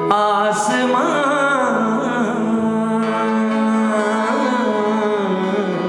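A worship song in Hindi/Urdu with a solo singer holding a long, wavering note on "aasmaan" ("heaven") over sustained keyboard-like backing chords.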